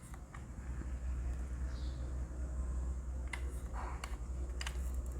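Washing machine motor running with a steady low hum that builds up about a second in, with a few scattered clicks over it.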